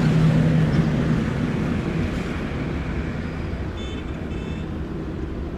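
Aircraft engines running with a low rumble, a steady low hum dying out after about a second and the whole sound slowly fading away. A few faint high chirps about four seconds in.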